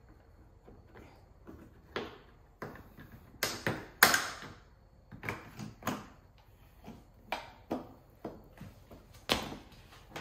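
Plastic trim panel being fitted back into place by hand: an irregular run of sharp clicks, knocks and short scrapes as it is looped in, seated and pushed home. The loudest knock comes about four seconds in.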